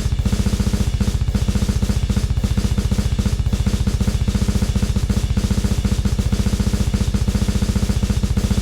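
Harsh electronic noise music: a fast, relentless machine-like drum pulse, close to a drum roll, over a thick low droning bass and a wash of noise, unchanging throughout.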